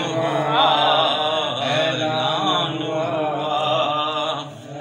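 A man's solo voice chanting a devotional Urdu kalam unaccompanied, holding a long wavering, ornamented line that fades out about four and a half seconds in.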